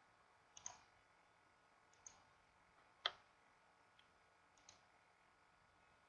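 Computer mouse button clicks: about five short clicks roughly a second apart, some as quick press-and-release pairs, the sharpest about three seconds in, over near-silent room tone.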